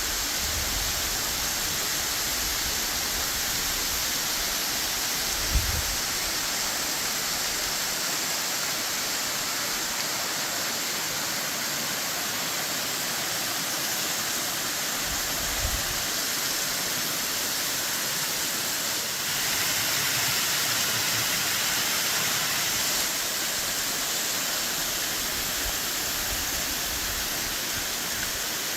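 Mary Jane Falls, a waterfall running high with spring snowmelt, pouring off a cliff in a steady, even rush of water. There are two brief low thumps, about six and sixteen seconds in, and the rush swells slightly around twenty seconds in.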